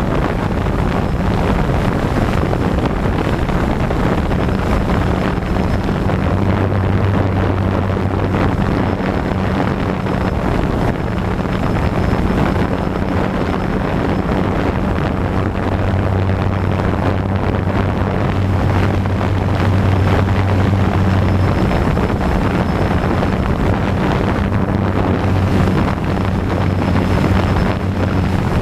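DJI Phantom 2 quadcopter's motors and propellers humming steadily, with a low hum that grows stronger and fades over stretches of several seconds, under a constant rush of wind noise on the microphone.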